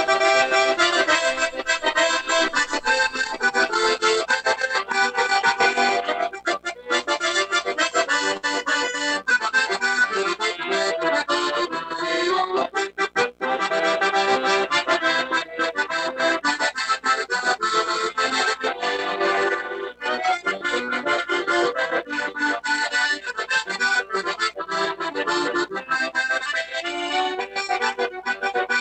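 Accordion playing an instrumental tune, with chords under a melody of quick, changing notes.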